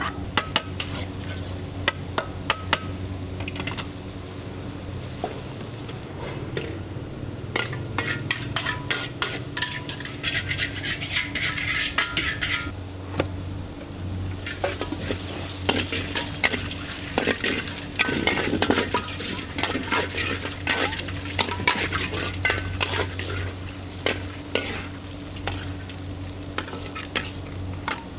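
Char kway teow stir-frying in a wok: a metal spatula clanks and scrapes against the wok again and again while the noodles sizzle, with louder stretches of hiss. A steady low hum runs underneath.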